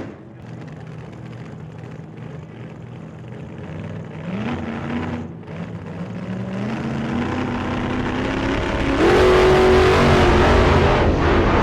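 Chrysler Sunbeam's engine pulling under acceleration, its note climbing in steps and growing louder, loudest from about nine seconds in.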